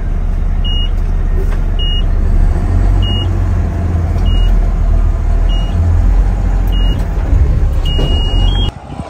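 A Mack garbage truck's diesel engine running with a steady low rumble, heard from inside the cab, with a vehicle backup alarm beeping about once every second and a bit. Near the end the sound drops away abruptly.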